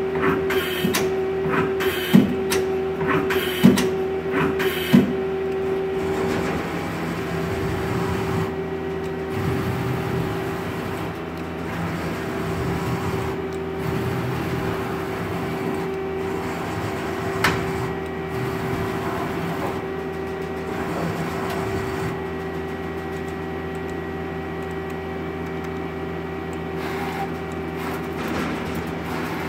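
Mazak Quick Turn Nexus 200 CNC lathe running with a steady hum. In the first five seconds the tool turret indexes with rapid clicking and three sharp clunks as it locks into position.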